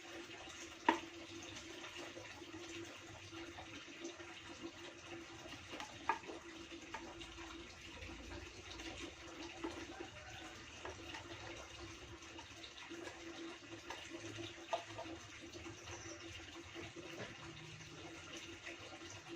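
Steady low hiss with a faint hum, broken by three sharp single clicks, about one, six and fifteen seconds in, as small parts of a handmade fishing rig are handled while a hole is worked through.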